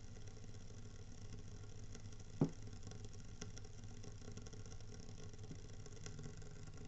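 Koln 80-litre electric water heater with dry heating elements crackling and clicking under its lower cover while heating, over a low steady hum, with one sharp loud crack about two and a half seconds in. The sizzling crackle sounds like something frying in a pan and is the sign of a faulty dry heating element.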